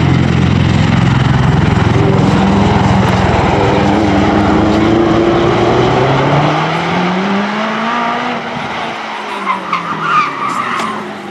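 A V-22 Osprey tiltrotor flying past, its two large proprotors and engines making a loud, deep, throbbing drone. The pitch of the drone rises and then falls as the aircraft banks and turns away, and it fades over the last few seconds, with a few short sharp sounds near the end.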